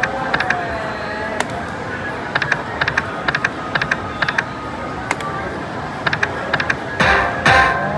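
Crazy Coin video slot machine spinning, its reels landing one after another with short sharp clicks in quick runs, spin after spin, over a steady background of machine sound. The spins pay nothing. Near the end comes a louder, noisy whoosh.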